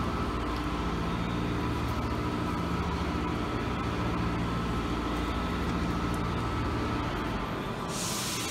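Steady low mechanical hum in a repair garage. Near the end a sudden loud hiss cuts in and keeps going.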